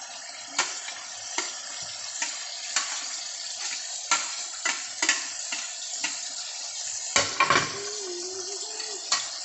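Chicken karahi sizzling in a karahi pan while a spoon stirs it, clicking and scraping against the metal about twice a second, with a louder clatter about seven seconds in.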